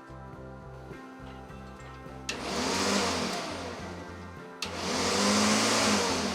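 Electric lawn mower motor switched on twice, each time starting with a click, spinning up and then winding down over about two seconds, over background music.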